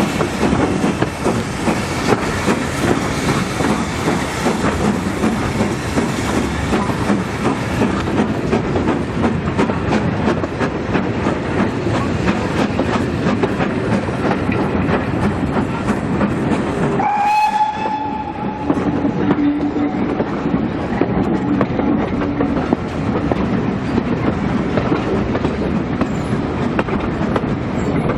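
Steam train hauled by a GWR Manor Class locomotive running at speed, the carriage wheels clattering steadily over the rails. About two-thirds of the way through, a short whistle sounds.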